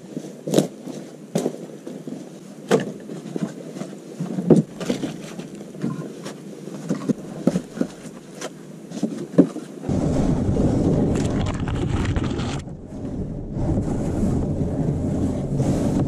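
Irregular sharp knocks and taps, then about ten seconds in an abrupt switch to a steady, low rushing noise.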